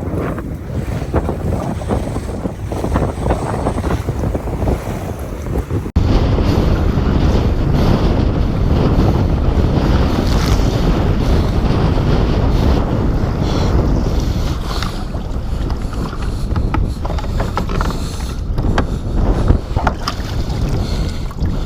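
Strong wind buffeting the microphone, with waves slapping against a fishing kayak on rough open water; the roar steps up suddenly about six seconds in.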